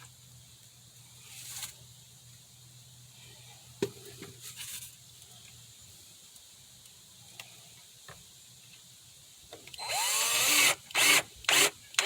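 Power drill-driver tightening the screws that hold a speaker to a plywood baffle: light handling sounds, then from about ten seconds in one longer run of the motor followed by several short bursts as the screws are snugged down.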